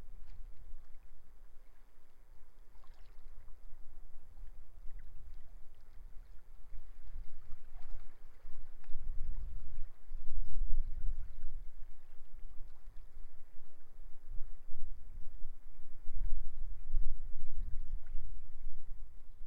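Strong wind buffeting the microphone in gusts, a low rumble that swells and fades, loudest about halfway through, over a faint wash of sea.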